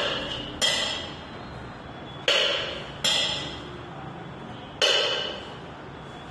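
A steel ladle clanking against a wok four times while stir-fried chicken is served out of it, two of the knocks close together in the middle; each clank rings and dies away over about half a second.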